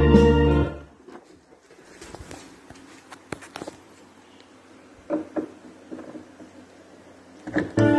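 Music from an A&J PA speaker cuts off under a second in, leaving a quiet stretch of scattered soft knocks and rustles; the music starts again just before the end.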